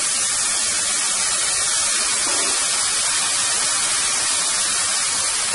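Sliced onions, green onions, celery and sweet peppers sizzling on a hot steel cooking disc (disco) over a wood fire: a steady, even hiss.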